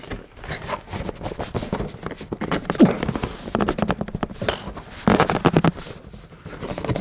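A cardboard box and its printed paper sleeve being handled and slid against each other: a dense run of scraping, rustling and crackling. It is loudest a little under three seconds in and again around five seconds in.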